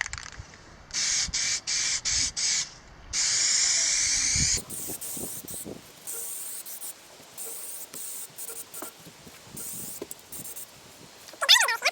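Aerosol can of self-etching primer spraying: several short hissing bursts, then one longer spray, then fainter on-and-off sprays. A brief loud high squeak comes near the end.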